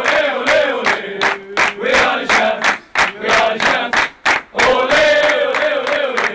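Group of football players and staff chanting a victory song together, with everyone clapping in a steady rhythm.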